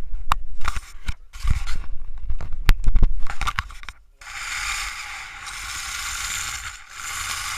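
A clatter of sharp clicks and knocks from handled gear during an airsoft game. Just after four seconds it gives way to a steady hiss.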